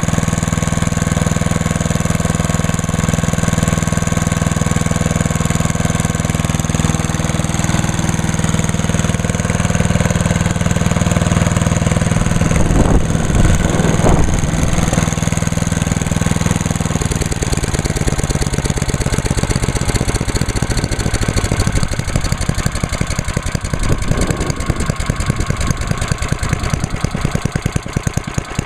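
The chipper/shredder's 10 horsepower single-cylinder Tecumseh engine running steadily after starting, then settling to a slower, pulsing idle about two-thirds of the way in.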